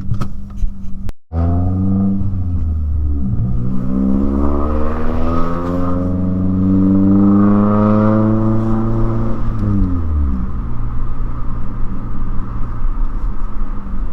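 2009 Mazda3 2.3-litre four-cylinder with a straight-piped racing header and high-flow cat, accelerating hard: the exhaust note climbs in pitch for several seconds, drops off about ten seconds in, then settles into a steady drone. The sound is loud, described as obnoxious.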